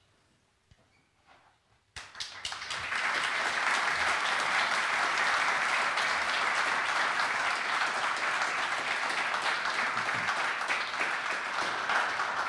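An audience applauding: a hall full of people clapping. It starts suddenly about two seconds in, holds steady, and begins to fade near the end.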